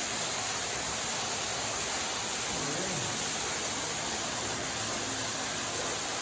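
Steady rush of a small waterfall falling inside a cave chamber, an even hiss with no breaks.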